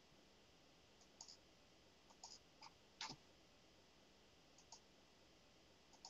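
Near silence with a few faint, scattered clicks, the loudest about three seconds in.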